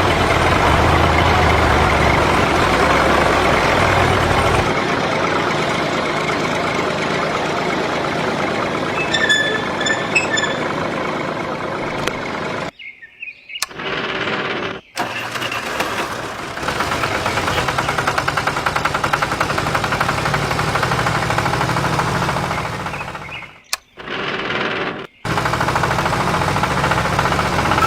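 Tractor-type engine running steadily, in several stretches joined by abrupt cuts with short silent gaps. Faint high tones come briefly about nine seconds in.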